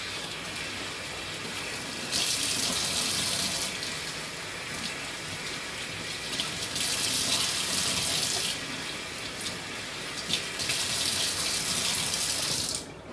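Kitchen tap running into the sink. The water is louder in three stretches of about two seconds each and drops away just before the end.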